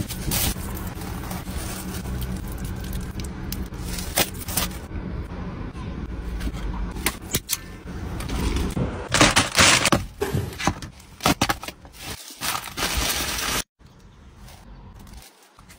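Handling sounds of eating in a car: clicks, scrapes and crinkles of takeaway boxes and foil over a steady low rumble, with a drink poured from a can into a glass jar. Near the end the rumble stops suddenly, leaving only faint tearing and rustling of food.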